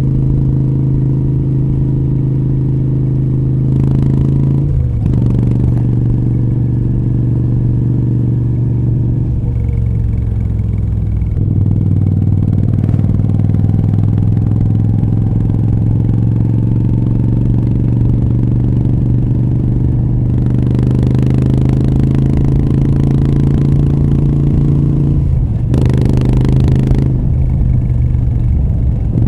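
Moto Guzzi V7 III Rough's air-cooled transverse V-twin running through short Mistral aftermarket exhausts while riding at road speed. The engine note holds steady, falls away once as the throttle closes, and steps up and down a few times.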